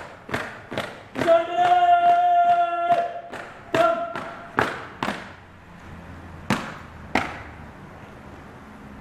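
Cadets' boots marching and stamping on a hard hall floor, a sharp knock about every half second, under a long held call twice. The steps then thin to a few single stamps.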